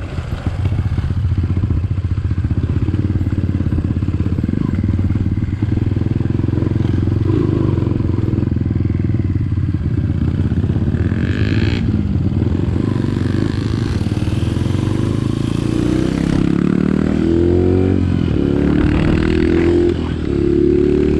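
Trail motorcycle engine running steadily as the bike is ridden, with the engine note shifting and climbing in the last few seconds as the rider changes throttle.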